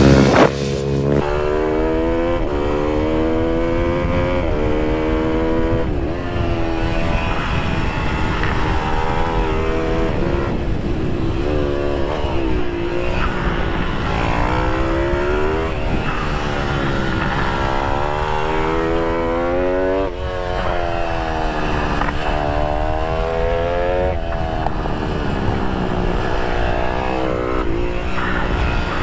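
IMR GP20 pit bike engine heard from on board, revving up and dropping back again and again as the bike accelerates, shifts and slows through the corners, with wind rush on the microphone. A louder burst of engine sound fills the first half second.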